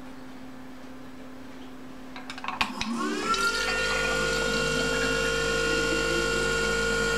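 Magnetic-drive pump of a small bottle-filling machine: a few clicks, then the motor spins up with a quickly rising whine about three seconds in and runs at a steady whine as liquid is pumped into a glass bottle. The whine starts to wind down at the very end as the fill stops.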